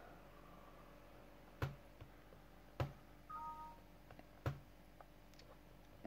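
Sharp computer button clicks, three loud ones a little over a second apart with a few fainter ones between, as a HEX file is opened in a programming program. Midway a short falling two-note chime sounds: the Windows notification played as a 'HEX file loaded successfully' message box pops up.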